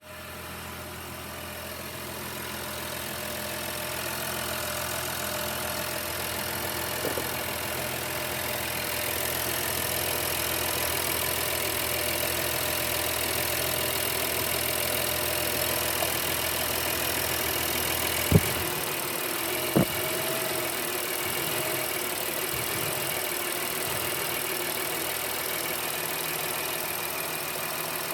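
Honda Pilot's V6 engine idling steadily with a torn air intake hose, the cause of its rough idle. A little past halfway there are two sharp knocks about a second and a half apart, after which the deep rumble becomes lighter.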